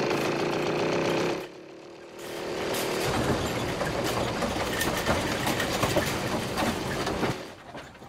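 A small engine running steadily, cutting out sharply about a second and a half in. After a short lull, a shopping cart's wheels rattle and rumble as it rolls fast down a dirt path, fading out shortly before the end.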